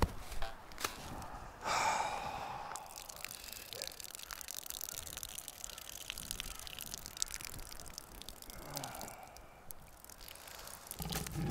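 A man urinating against a tree: a thin stream trickling and splashing onto dry leaf litter, with a breathy exhale about two seconds in.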